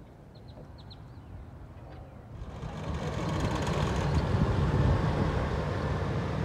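Vehicle noise that swells up about two and a half seconds in and then runs on steadily, over a low rumble. There are a few faint high chirps in the first second.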